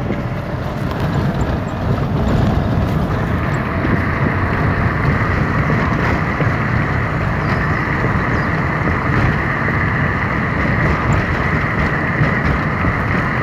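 Steady running noise of a car being driven, heard from inside, with wind rumbling on the phone's microphone. A steady higher hum comes in about four seconds in.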